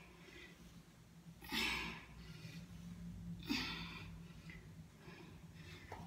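A woman breathing out hard with the effort of dumbbell squats, twice, about two seconds apart, one breath per repetition, over a faint low steady hum.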